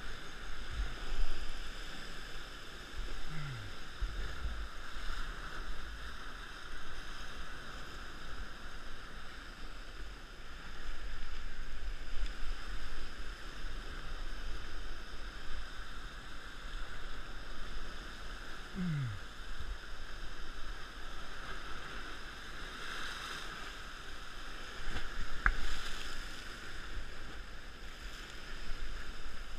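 Ocean surf washing and churning around a rock ledge, a steady rushing that swells louder about eleven seconds in and again near the end.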